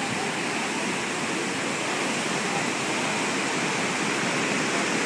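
Ocean surf breaking and washing in: a steady rushing of waves that swells slightly near the end.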